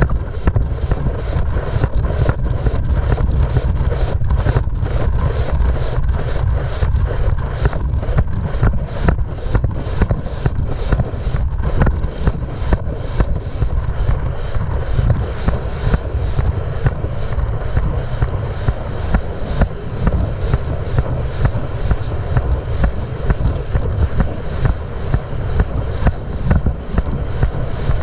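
Racehorse galloping on a dirt track, heard from the rider's head: a heavy rush of wind on the microphone with a regular beat of hoofbeats running through it.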